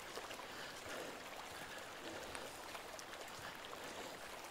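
Faint, steady rush of a river flowing over small rapids.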